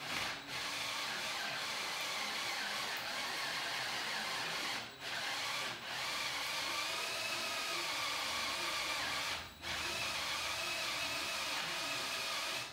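Cordless drill boring into a thick high-density polyethylene board, running steadily under load with a few brief stops, drilling shallow holes so the board seats on the cart's posts.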